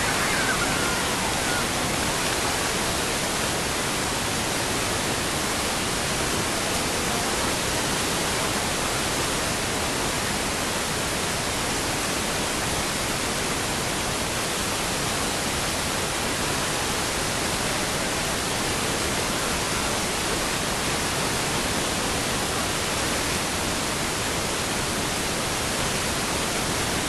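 Steady, even hiss like static, spread across all pitches and unchanging throughout, covering any other sound.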